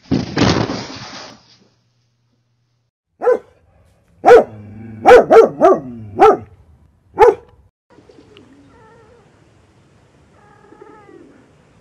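Dog barking: about six short, loud barks in a run of roughly four seconds, after a brief noisy burst at the start. Faint cat yowls follow near the end.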